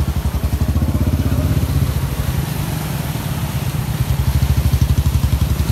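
Motorcycle engine idling with a steady, rapid low pulsing, over an even hiss.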